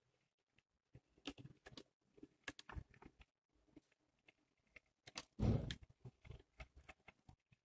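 Kleinbahn H0 model ÖBB 5046 railcar running along the track, its wheels clicking irregularly over rail joints and turnout frogs. A louder burst of clatter comes a little after five seconds in, lasting about half a second.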